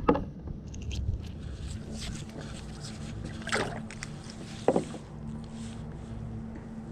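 A kayak on the water, with low rumbling handling and water noise. Two light knocks come around the middle, a little over a second apart, and a faint steady hum comes in about a second and a half in.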